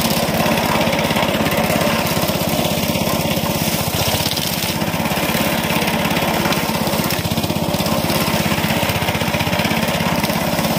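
Small petrol engine of a wheeled push brush cutter running steadily under load, its horizontal blade, bent down at the tips, spinning through grass and scraping the topsoil to cut, weed and till in one pass.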